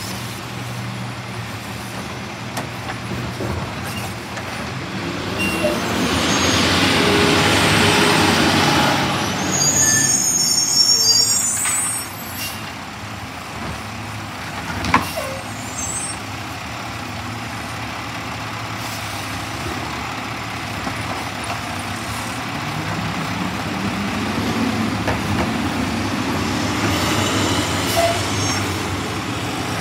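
Mack LR side-loader garbage truck's engine running, swelling louder twice as the automated arm lifts and dumps carts and the truck pulls ahead. Short air-brake hisses come about a third of the way in, and a single sharp clank comes about halfway.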